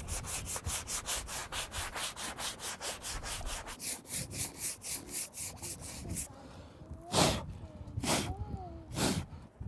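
Hand saw blade cutting into the wooden gunwale rail of a small fishing boat, in quick, even strokes about three to four a second. Near the end the strokes slow to three heavier ones about a second apart, with a brief squeak between them.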